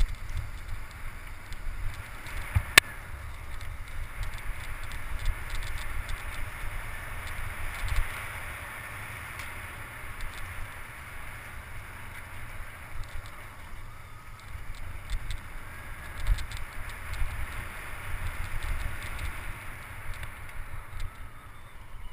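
Mountain bike ridden fast over a dirt singletrack: wind buffets the microphone while the tyres run over the dirt and the bike rattles over bumps, with many small clicks and one sharp knock about three seconds in.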